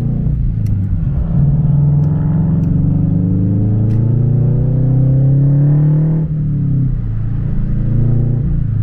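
Stage 2-tuned Scion FR-S's flat-four engine and exhaust pulling under acceleration, its note rising for about five seconds. The pitch then drops sharply about six seconds in, and the engine settles to a steady drone.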